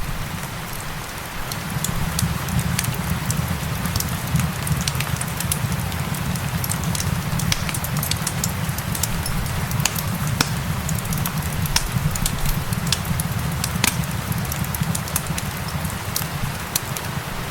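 Crackling fireplace mixed with steady rain: a constant rain hiss and low rumble, dotted with many sharp crackles and pops from the burning wood.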